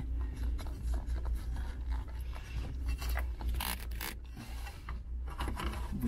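Nylon cable tie being pulled tight through its ratchet head around a fabric gear-lever gaiter: an uneven run of small clicks and rubbing, with a louder cluster a little past halfway, over a steady low hum.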